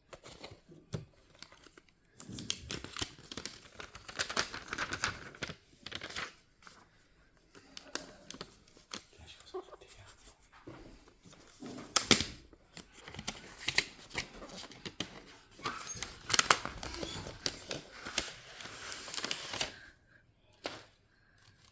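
iPad box packaging being opened: plastic film and paper tearing and crinkling in irregular bursts, with sharp handling clicks and knocks.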